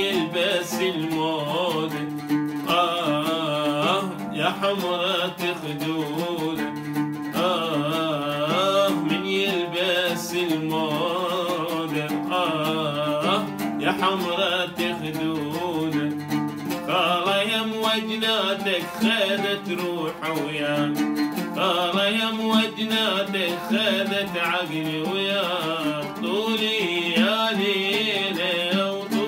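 Oud played with plucked notes while a man sings an Iraqi folk melody over it, in long ornamented lines with vibrato.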